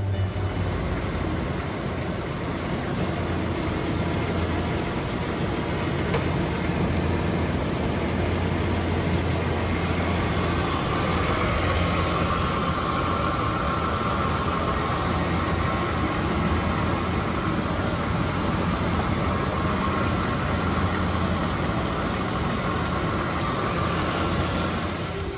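2003 Ford Explorer running: a steady engine drone with a low hum and even vehicle noise, with no distinct clunks standing out.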